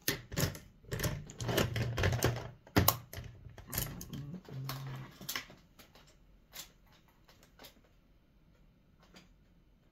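Small makeup items clicking and clattering as they are rummaged through in search of an eyebrow pencil: a dense run of quick clicks and knocks for about five seconds, then only a few scattered clicks.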